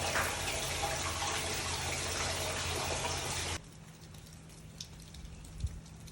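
Running, splashing water that cuts off abruptly about three and a half seconds in. A much quieter patter with a few faint drips follows.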